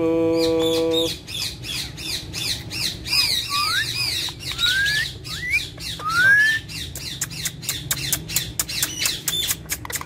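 Indian ringneck parakeets chirping and squawking in short rising and falling whistled calls, among many sharp clicks. A held, voice-like call opens the sound for about a second.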